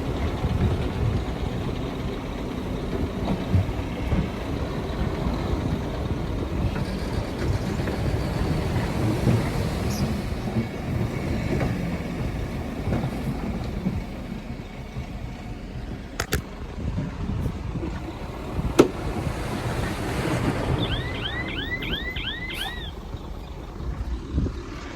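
Heavy diesel engine of earthmoving machinery running steadily with a low rumble, with two sharp knocks in the middle and a quick run of short high chirps near the end.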